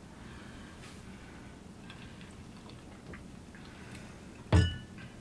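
Quiet room with a few faint small ticks while a cocktail is sipped, then a single sharp knock about four and a half seconds in as the glass is set down on the table.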